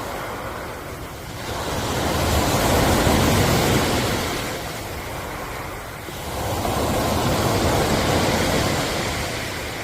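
Ocean waves surging in: two swells of surf rise and fall, about four to five seconds apart.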